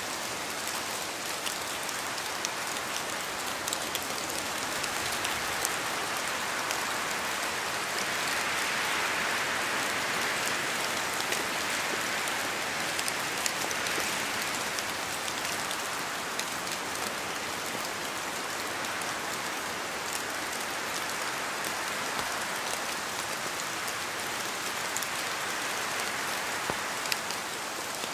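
Steady rain falling on a surface, a continuous hiss with the patter of individual drops, swelling slightly a few seconds in before easing back.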